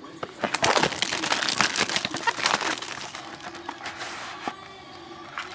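Plastic wrapping crinkling and tearing as trading-card boxes and packs are opened by hand. It is busy and crackly for the first few seconds, then thins to a few faint rustles.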